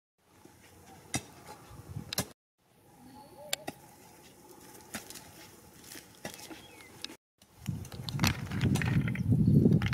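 Quiet outdoor ambience with a few faint scattered clicks, broken by two brief drop-outs; in the last two and a half seconds, loud dense clattering and knocking as snail shells are handled on the ground and dropped into a clay pot.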